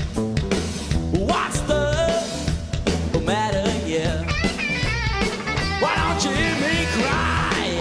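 Blues-rock band playing live with drums, bass and electric guitar, and over them a wavering lead melody that bends up into its notes.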